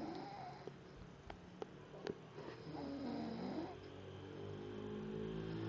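Snoring: wavering, drawn-out breaths with a few sharp clicks in the first half. A steady low hum builds in the second half.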